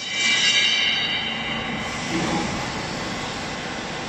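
A vertical hydraulic baler's motor and pump start up suddenly with a high whine that fades after about two seconds, then keep running steadily.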